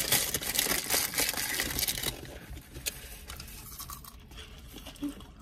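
Takeout food packaging being handled: a dense crackle of rustling for about two seconds, then quieter handling.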